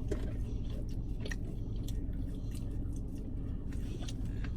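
Close-up chewing of creamy fettuccine alfredo: soft, wet mouth sounds with scattered small clicks and smacks, over a steady low hum.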